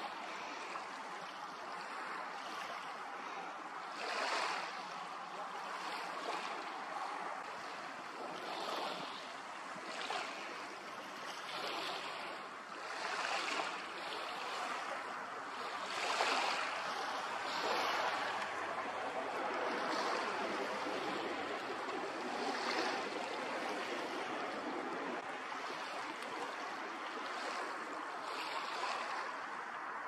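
Small waves lapping and washing on open water: a steady rush that swells every few seconds.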